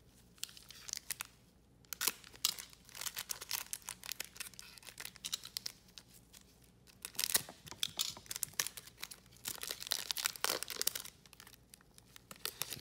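A Panini Select baseball card pack's foil wrapper being crinkled and torn open by hand, in several bursts of crackling. Near the end, the stack of cards is slid out of the wrapper.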